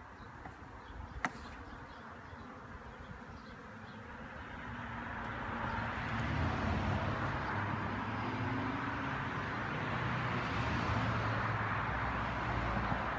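Honeybees buzzing in a steady hum that swells louder about four seconds in and stays up; a single sharp click about a second in.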